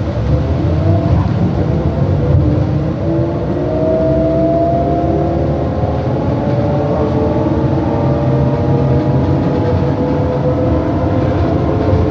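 New Flyer E40LFR electric trolleybus heard from inside, accelerating: several whining tones from the electric drive and axle climb steadily in pitch, over a constant rumble of road and tyre noise.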